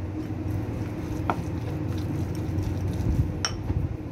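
A steady low rumble with two light clicks of kitchen utensils, one about a second in and one near the end.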